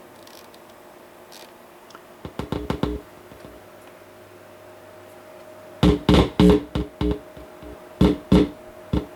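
Guitar played through a Behringer guitar amplifier, working again after a cracked solder joint on one audio output was repaired. A few light notes come about two seconds in, then loud strummed chords from about six seconds in, over a faint steady hum from the amp.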